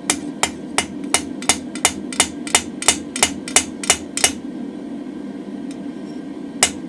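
Hand hammer striking steel on an anvil in a steady run of about thirteen blows, roughly three a second, then a pause and one more blow near the end, as a mild-steel drift is hand forged. A steady low hum runs underneath.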